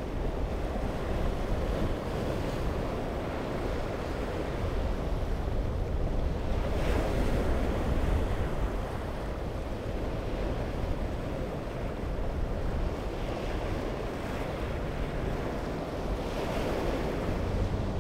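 Wind buffeting the microphone over choppy sea water washing against jetty rocks: a steady rushing noise with a deep rumble, swelling a little about seven seconds in.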